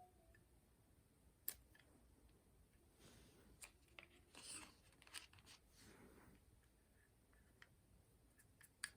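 Faint handling sounds of a new Zippo lighter and its packaging. There is a sharp click about a second and a half in, soft rustling with small clicks in the middle, and a couple of clicks near the end.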